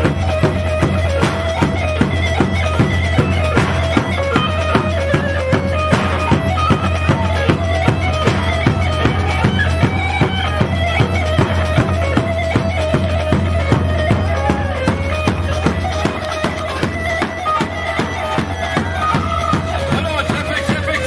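Live Kurdish grani dance music: a reedy, pipe-like lead melody over a fast, steady beat, played on electronic keyboard with bağlama.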